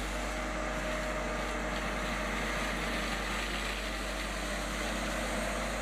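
Tracked forestry mulcher (PrimeTech PT600 carrier with an FAE mulching head) running steadily, its engine and rotor drum grinding through soil and stumps in a constant, unchanging noise.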